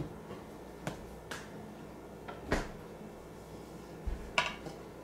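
A few light clicks and taps, the sharpest about two and a half seconds in, as a plastic measuring cup is handled and tipped against a glass bowl to pour in sago starch, with a short scrape near the end.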